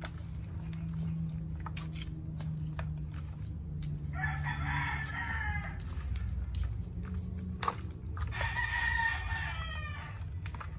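A rooster crowing twice, each crow about a second and a half long, over a steady low hum. Faint ticks and scrapes of a knife cutting into compacted potting soil and roots are also heard.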